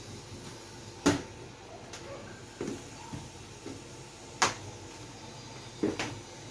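A few light, sharp knocks and clicks, about four in all and the loudest a little past the middle, from plastic bottles and pots being handled on a table in a small, quiet room.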